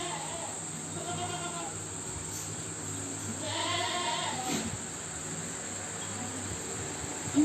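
Goats bleating: two long, wavering bleats, one about a second in and a louder one near the middle.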